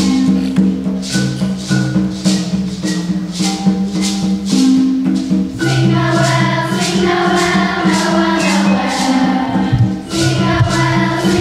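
Children's school ensemble playing wooden xylophones over a steady shaker beat of about three shakes a second. A children's choir starts singing with them about six seconds in.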